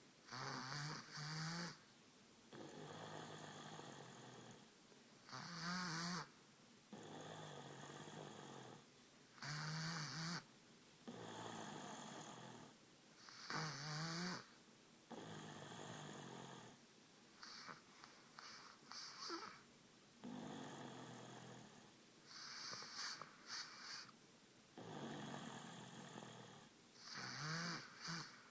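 Rhythmic snoring: a loud, rasping snore every few seconds, with quieter breaths in between.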